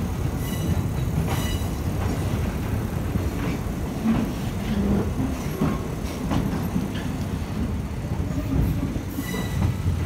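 Passenger train running along the track, heard from on board: a steady low rumble of the carriage with scattered clacks from the wheels and a few brief faint squeals.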